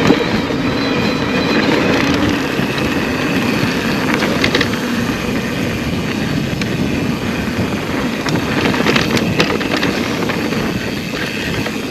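Electric mountain bike being ridden along a trail: steady rush of tyres over rough ground with rattles and clicks, and wind on the microphone. A faint steady whine from the e-bike's motor sits under it during the first few seconds.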